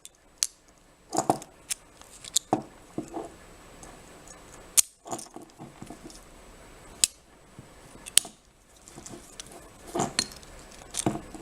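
Silverline old English lever padlock being worked by hand with its key: scattered metallic clicks and clinks with a few sharp snaps, as the key is turned and the shackle moved.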